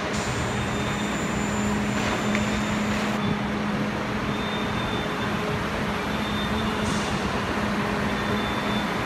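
Steady din of a city construction site: machinery and traffic noise with a low, steady hum.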